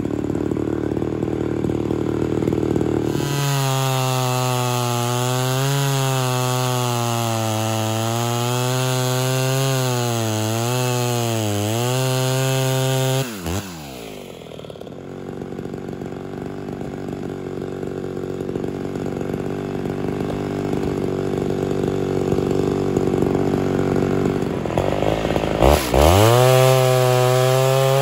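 Ported Homelite Super XL Automatic two-stroke chainsaw cutting into a block of firewood at full throttle, its pitch dipping and recovering as the chain loads up in the cut. About thirteen seconds in it drops back to idle; near the end it revs quickly back up to full throttle.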